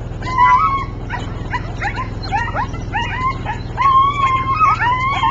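Young sled dogs being harness-broken, yipping and whining as the team runs, many short rising cries with a few longer held howls about four and five seconds in. A steady low hum runs underneath.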